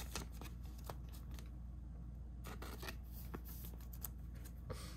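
Faint, intermittent rustling and scraping of a thin plastic card sleeve as a trading card is slid into it by hand.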